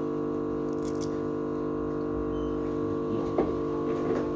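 A steady hum made of several held tones, unchanging throughout, with a couple of faint clicks near the end.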